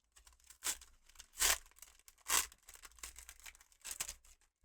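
Foil Pokémon card booster pack being torn open and crinkled: a series of short rips and crackles, the loudest about one and a half and two and a half seconds in.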